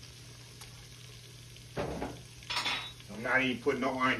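Flour and oil sizzling faintly in a stainless steel Instant Pot insert on sauté, the flour cooking in the fat to thicken a gravy. About two seconds in there is a knock and scrape of a spoon against the pot. In the last second a man's voice is heard briefly, without clear words.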